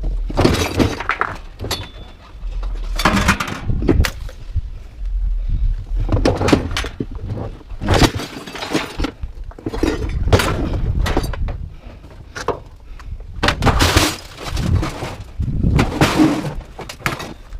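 Scrap metal being thrown down onto a scrap pile: a long string of clanging crashes and clatters, often a second or less apart, with short pauses between groups.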